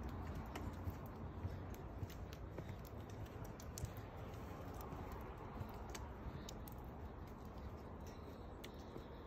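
Footsteps crunching through snow: faint, irregular clicks and crunches over a low, steady rumble of handling noise.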